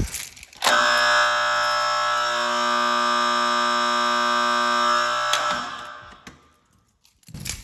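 A Honeywell-badged 4030 AC fire alarm horn from an early-1960s system sounds a steady, continuous buzzing blare for about four and a half seconds, then stops. There is a sharp click just before it starts.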